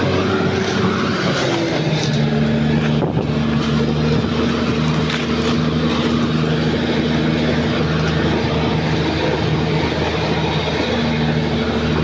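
Caterpillar D6R XL bulldozer's diesel engine running steadily under load as the crawler pushes soil along with its blade.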